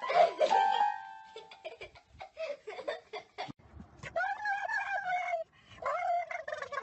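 A dog making drawn-out whining calls, two long ones in the second half, with scattered clicks and a brief steady tone near the start.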